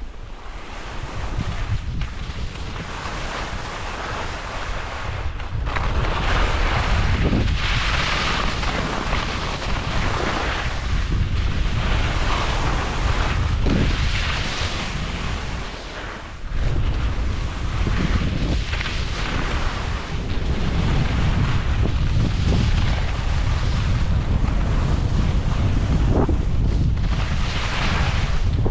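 Edges carving and scraping across chopped-up packed snow in a run of downhill turns, each turn a swell of hiss, over a steady rumble of wind on the microphone. It gets louder about six seconds in, with a brief dip past the middle.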